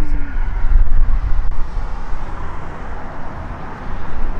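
Wind buffeting the microphone: a gusty low rumble that rises and falls, over a steady outdoor hiss.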